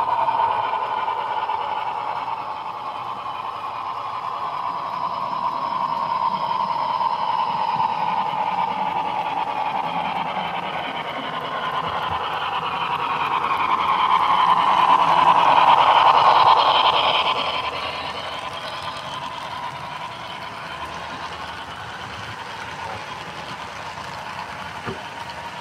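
Model train running past on the layout's track: a steady whining tone that grows to its loudest about sixteen seconds in, then fades as the freight cars roll by.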